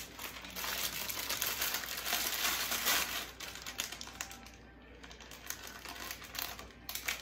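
Clear plastic bag crinkling and rustling as it is handled and opened, busiest in the first three seconds, then fainter with a few more crackles near the end.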